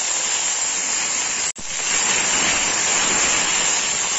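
Wet ginger paste sizzling hard in hot mustard oil in a kadai, a loud, steady hiss. It cuts out for an instant about a second and a half in, then carries on.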